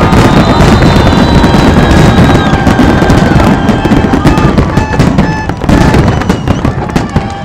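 Fireworks display at full intensity: a dense, continuous barrage of bangs and crackling from many shells bursting together, thinning out and getting quieter near the end.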